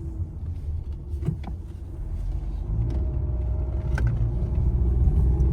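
A car running, a low engine and road rumble that grows louder as it gathers speed, with a couple of faint clicks.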